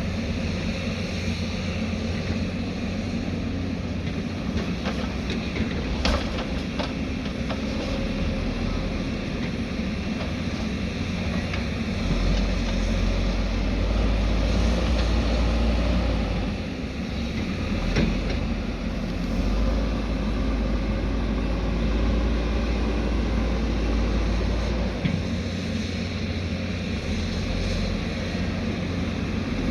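Diesel engine of heavy earthmoving machinery running steadily, growing deeper and louder twice partway through, with a couple of sharp knocks.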